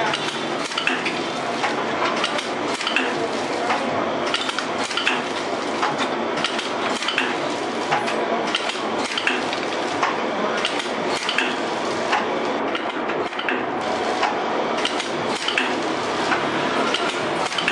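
Automatic pneumatic form-fill-seal pouch packing machine running, a continuous dense clatter of metallic clicks and knocks, several a second.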